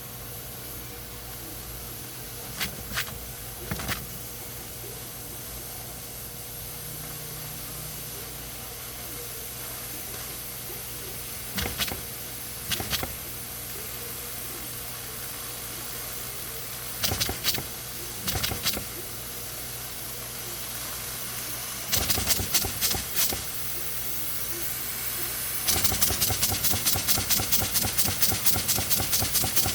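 Small homemade single-cylinder steam engine over a steady steam hiss. It fires in a few short bursts of chuffs, then about three-quarters of the way through it settles into running steadily with several exhaust chuffs a second. The stop-start firing is typical of low boiler pressure, which the builder puts down to a gas stove that may not get it hot enough.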